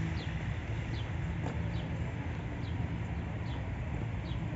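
A small bird calling with short, high, falling chirps, repeated about once a second, over a steady low background rumble.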